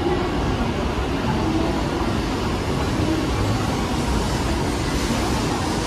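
Steady low mechanical rumble of a moving escalator, heard while riding it up, with no distinct knocks or changes.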